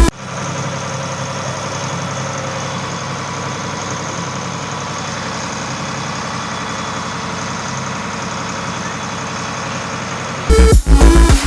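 Ferry boat engine running steadily at a constant pitch. Electronic music starts again near the end.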